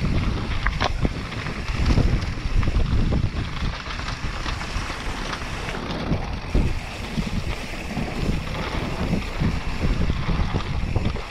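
Wind rushing over the microphone as a mountain bike descends a dirt trail, with a steady rumble of tyres and a few sharp knocks from the bike over bumps.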